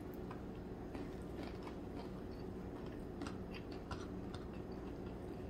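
Faint chewing of a mouthful of rice and crispy fried dried squid, with scattered small crunchy clicks.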